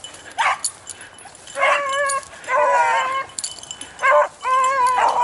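Beagle hounds baying on a scent track, giving tongue as they run it: about five bays, some short and some drawn out.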